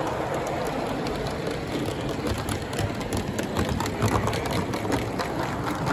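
Gauge 1 live steam locomotive running along the track with its train, giving a fast, uneven patter of small clicks over a steady low rumble.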